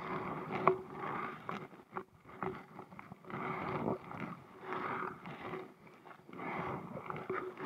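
Kayak paddle strokes swishing through the water in a steady rhythm, about one stroke a second.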